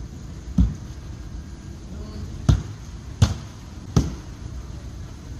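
A fist banging on a tram's closed door: four heavy thumps, one about half a second in, then after a pause three more about three-quarters of a second apart, over a steady low rumble.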